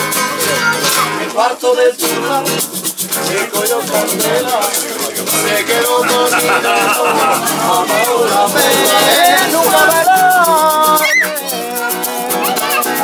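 Live acoustic guitars strumming, with a shaker rattling a steady rhythm and men's voices singing the melody.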